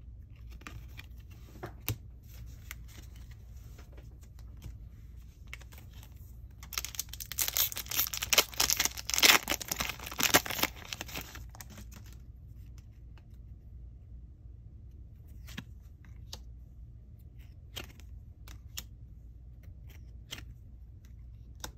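Foil wrapper of a Goddess Story trading-card booster pack being torn open and crinkled for about five seconds, starting about seven seconds in. Before and after it there are faint clicks of cards being handled.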